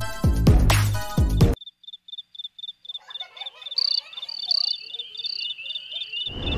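Electronic music with deep bass ends about a second and a half in. Then an insect chirps in short, even, high-pitched pulses, about five a second, with a few fainter, higher calls over it. Just before the end, a loud steady rush of noise cuts in.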